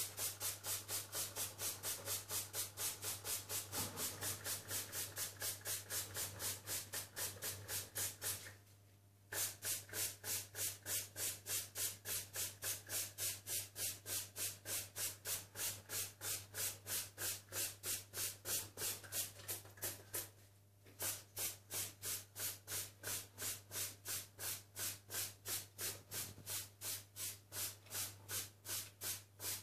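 Hand-trigger spray bottle pumped rapidly, about three squirts a second, misting wetting agent onto a part in three runs with short pauses about 8 and 20 seconds in.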